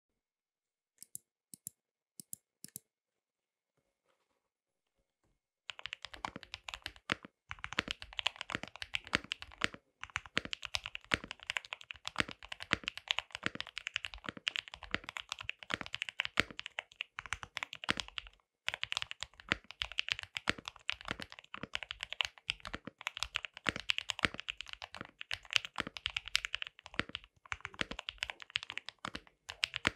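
Mechanical keyboard being typed on: a KBD67 Lite R3 in a stacked acrylic gasket-mount case with an acrylic plate, lubed KTT Strawberry linear switches and doubleshot ABS Cherry-profile keycaps. A few separate clicks in the first three seconds, then fast continuous typing from about six seconds in, broken by short pauses.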